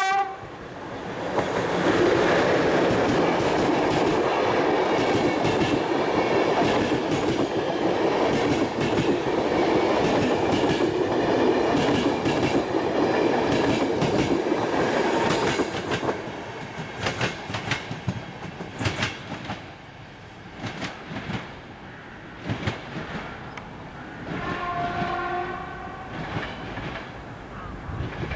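Passenger coaches behind an EP09 electric locomotive passing close by: a loud steady rumble with wheel clicks over the rail joints for about fifteen seconds, the clicks thinning out as the train moves away. A short train horn note sounds at the very start, and another horn blast comes from the departing train about 24 seconds in.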